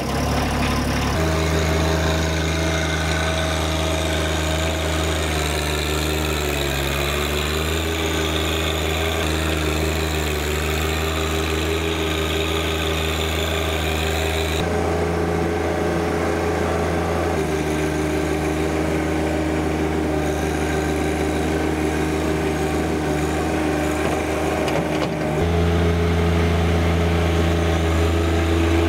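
John Deere 1025R compact tractor's three-cylinder diesel engine running steadily while it works the front loader moving dirt. The engine note sags briefly under load about seven seconds in and gets louder near the end.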